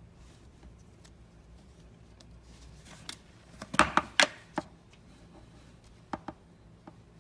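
Slime being pressed and squished by hand, giving sharp clicks and pops: a quick cluster of loud ones about four seconds in and a few more near the end.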